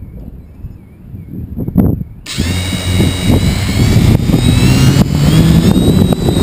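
A model aircraft's motor starts suddenly about two seconds in and runs with a loud whine that rises slightly in pitch, after a single thump.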